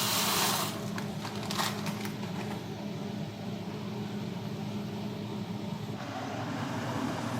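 Steady hum of a running kitchen appliance, a fan-like drone with a constant low tone. It opens with a short rush of noise and has a single click about a second and a half in.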